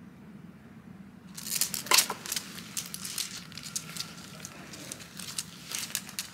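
Dogs moving on a tiled entryway: a run of irregular sharp clicks and crackles starting about a second and a half in, loudest near two seconds.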